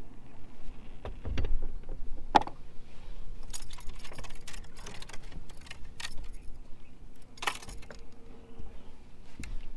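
Fishing tackle being handled on a bass boat's deck while a rod is rigged: scattered light clicks and rattles, a few sharper clicks, and a dull thump about a second in.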